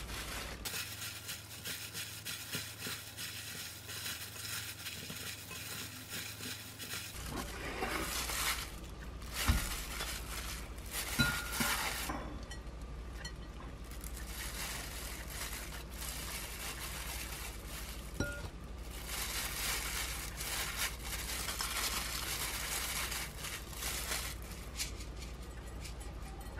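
Plastic-gloved hands tossing and lifting buckwheat noodles in a glass mixing bowl: soft wet handling and rustling, with a few sharp clinks of the glass bowl, two of them ringing briefly.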